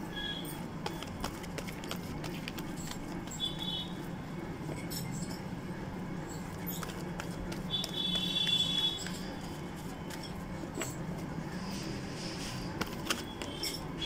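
A deck of oracle cards being shuffled by hand: soft rustling and light clicks of the cards over a steady low hum. A few short high-pitched sounds come through, the loudest about eight seconds in.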